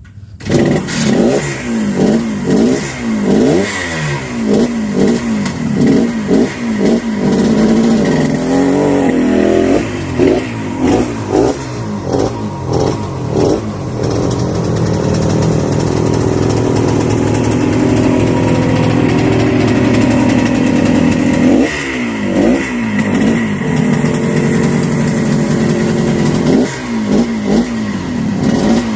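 A 1975 Harley-Davidson SS250's two-stroke single-cylinder engine revving up through the gears on its first ride after restoration, its pitch rising and dropping again and again. A steadier stretch of cruising comes about halfway through.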